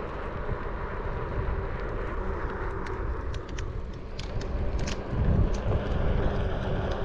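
Onewheel GT electric board on the move: a steady rolling rumble with a faint motor hum, and a few light clicks in the middle.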